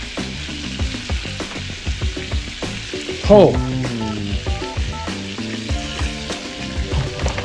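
Seared fish sizzling in hot garlic butter and oil, a steady crackling hiss. Background music with a melody plays over it, louder from about three seconds in.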